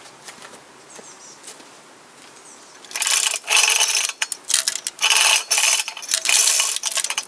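Manual chain hoist being worked by its hand chain: steel chain rattling through the hoist with sharp metallic clattering and clicking, in a run of pulls starting about three seconds in.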